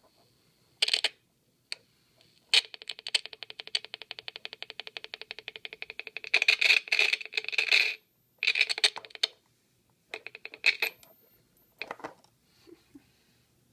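Small 8-ohm speaker driven by a CD40106 Schmitt-trigger oscillator through an LM386 amplifier, giving a rapid train of evenly spaced clicks. The sound cuts in and out in bursts and stops abruptly as hand-held wires make and lose contact on the pins, with no connectors fitted.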